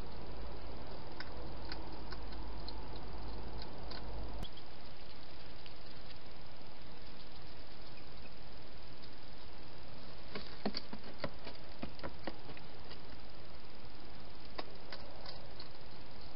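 Wild hedgehog eating at a feeding bowl: scattered sharp crunching clicks over the steady hiss of the camera's microphone, thickest in a cluster near the middle. A low hum stops suddenly about four seconds in.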